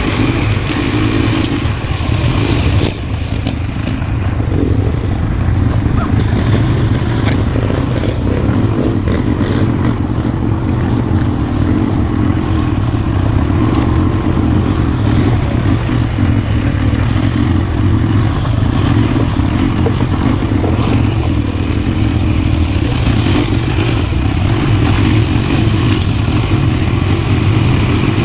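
ATV (quad bike) engine running steadily under way, with a brief drop in level about three seconds in.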